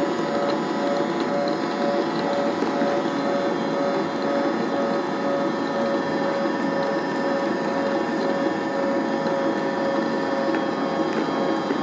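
Electric stand mixer running steadily, its motor keeping a constant-pitch hum as the beaters churn a stiff butter, corn syrup and powdered sugar mixture in a plastic bowl.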